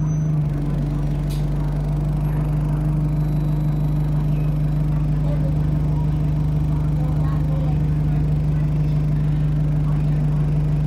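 City bus engine idling with a steady low hum, heard from inside the passenger cabin. There is one short click about a second in.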